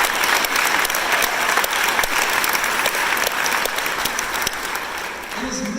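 An audience applauding steadily, a little softer near the end.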